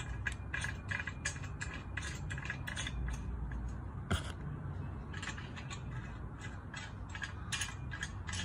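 Small metal nut being hand-threaded onto a bolt through a metal rack's base bracket: a string of light, irregular metallic clicks, with one sharper knock about four seconds in.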